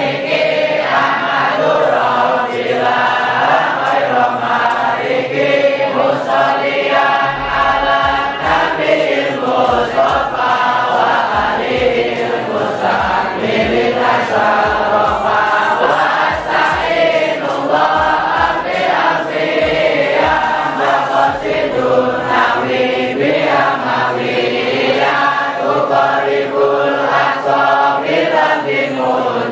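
A large crowd of young men chanting together in unison, loud and continuous, with irregular low thumps through the middle stretch.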